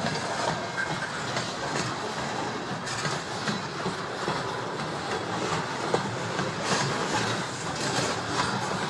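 Long BNSF freight train rolling past: a steady rumble of steel wheels on rail with irregular clicks.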